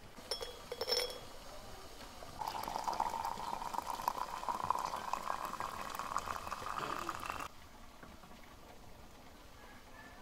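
A few light clinks, then water pouring in a thin stream into a porcelain teapot of tea leaves for about five seconds, the pitch creeping up slightly as the pot fills, stopping suddenly.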